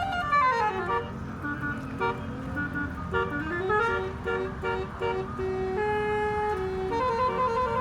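Bus 'telolet' multi-tone horn playing a tune of stepped notes, with a falling pitch slide at the start and a rising one about three seconds in, over a low engine rumble.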